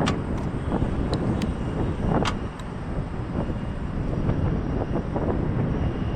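Gusty wind buffeting the microphone: a steady low rumble, with a few sharp clicks near the start and about two seconds in.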